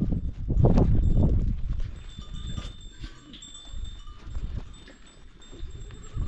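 Livestock bells ringing among a herd of farm animals, with a louder, low-pitched stretch of sound in the first second and a half.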